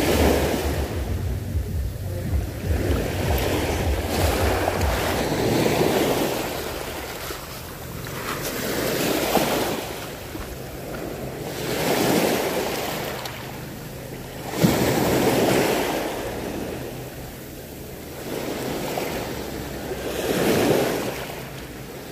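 Small waves breaking and washing up on a beach, swelling and fading about every three seconds, with wind on the microphone. A single sharp knock about fifteen seconds in.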